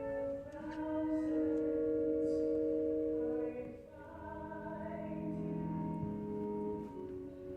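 Slow music of long held, choir-like chords that change every few seconds.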